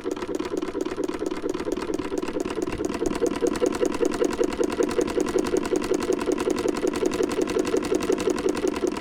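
Klasse patcher sewing machine stitching at a steady, fast, even rhythm, sewing a replacement zipper into a leather bike jacket.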